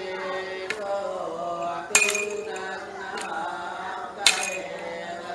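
Iban timang chant: men's voices chanting in long held notes, with a sharp metallic clink about every second and a quarter as the lead bard's staff strikes the floor in step.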